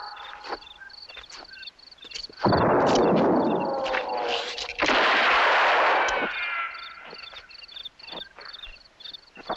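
Gunshot-like blasts and ricochet sounds in a composed sound-art piece. Two loud blasts come about two and a half and five seconds in, each trailing off in falling whines, among scattered sharp cracks. A row of short, high-pitched tones repeats throughout.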